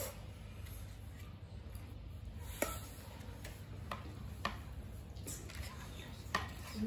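Plastic serving spoon scooping rice out of a steel pot, clicking and tapping against the pot rim and paper plates: about half a dozen light, irregular clicks.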